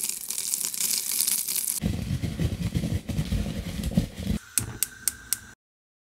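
Mixed seeds handled and crushed in a fist. First a hiss of rattling seeds, then a stretch of deeper, rough crunching, then a few sharp clicks before the sound cuts off abruptly.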